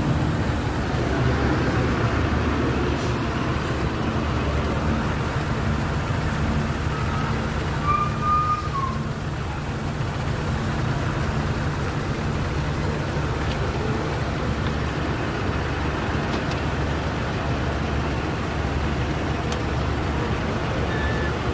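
Truck running, its engine and road noise heard from inside the cab as a steady low drone. A short high tone sounds about eight seconds in.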